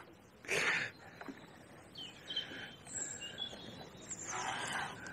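Faint bird chirps and short whistled calls. There is a brief rush of noise about half a second in and another near the end.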